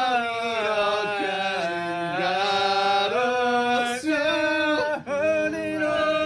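Men's voices singing loudly together inside a car, with long held notes that slide up and down.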